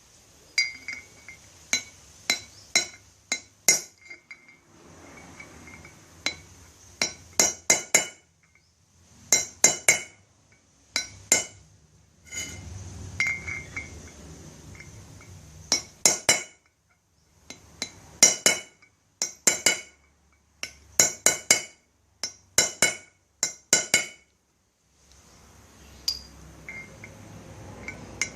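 Hammer blows on a steel punch against a wheel hub's bearing bore, coming in quick groups of three to five sharp, ringing strikes with short pauses between. The bore is being stippled (peened) with the punch to raise the metal so the worn, loose bearing seat will grip the bearing again.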